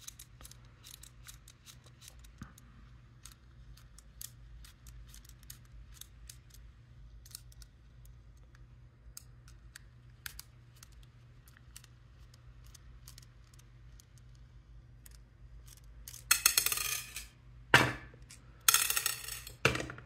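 Small screwdriver backing screws out of a robot arm's servo motor: many faint, irregular ticks and clicks. Near the end come three louder bursts of rustling and clatter as parts and the tool are handled, the loudest a sharp knock.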